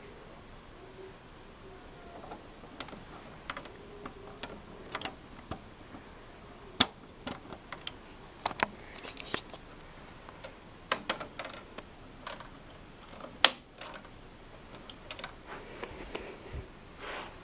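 Plastic clicks, taps and scrapes as a painted faceplate is worked onto the front of a DVD-ROM drive, with a few sharper snaps about 7, 8.5, 11 and 13.5 seconds in.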